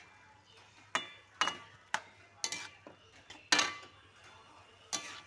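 Metal spatula scraping and knocking against a metal wok while stir-frying peeled shrimp, several sharp strokes at irregular half-second intervals; the loudest comes about three and a half seconds in.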